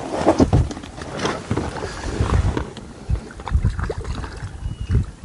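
Water splashing and sloshing as a hooked crucian carp is played and drawn in through the reeds. Irregular low thumps and rustles run through it.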